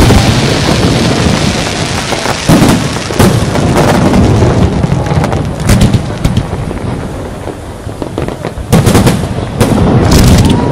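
Fireworks display: a continuous rumble of aerial shells bursting, with repeated sharp bangs and a dense cluster of reports about nine seconds in.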